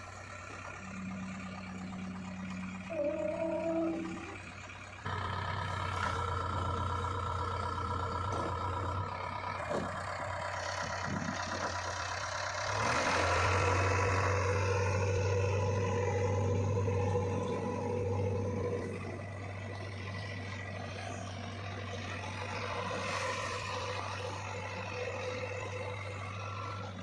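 JCB 3DX backhoe loader's four-cylinder diesel engine running with a steady low hum. It grows louder about five seconds in and again around thirteen seconds as the machine works and drives. A short higher whine comes about three seconds in.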